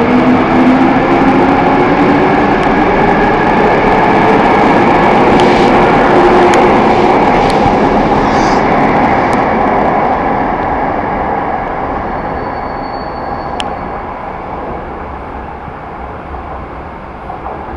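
Toei 5300-series electric train pulling away from the platform. Its traction motors give a rising whine over the rumble and clatter of wheels on rail joints, and the sound fades steadily as the train leaves.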